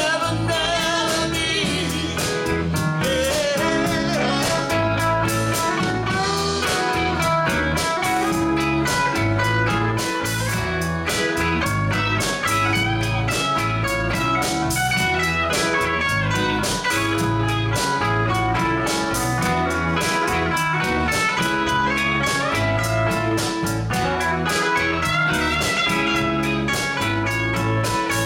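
Live blues-rock band playing with bass guitar, electric guitar, keyboard and drums on a steady beat. A woman sings over the first few seconds, then the band carries on instrumentally.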